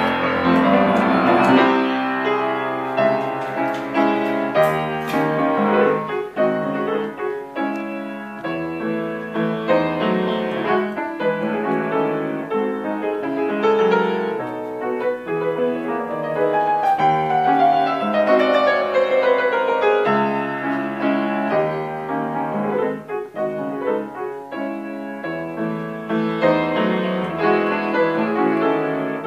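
Kawai studio upright piano played with its upper front panel removed, the hammers and strings open to the room: a flowing piece of many quick notes, with a descending run a little past halfway.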